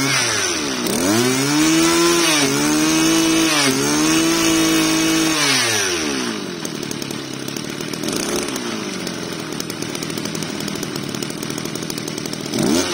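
Mitsubishi TL261 26cc two-stroke brush cutter engine revved by hand at the carburettor throttle. It climbs to high revs and dips briefly twice, drops back to idle about six seconds in, gives a short blip a couple of seconds later, then idles until it revs up again at the very end.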